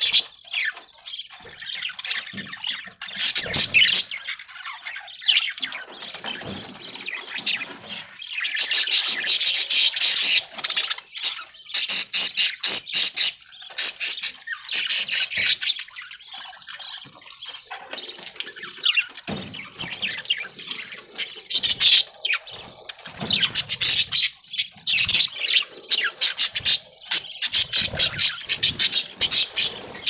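A flock of budgerigars (budgies) chattering and warbling, a rapid high-pitched twittering that swells and fades in bursts.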